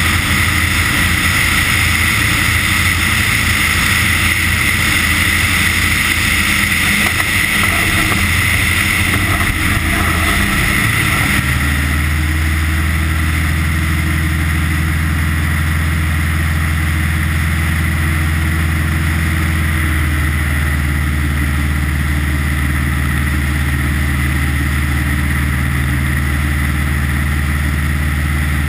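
Light ski-plane's engine and propeller running steadily, with wind rushing past the outside of the aircraft. About eleven seconds in, a rough, noisy rumble gives way to a smoother, steady low drone.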